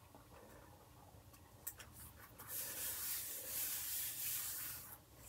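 Hand rubbing a paper card flat onto a collage page: a papery swishing that starts about halfway through and lasts a couple of seconds, after a single light tick.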